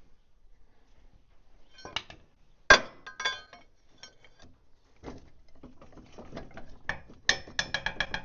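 Loose steel parts of a bulldozer's track-tensioner assembly clinking and knocking together as they are handled, with ringing metal-on-metal clinks. One sharp strike about two and a half seconds in is the loudest, and a quick run of clinks comes near the end.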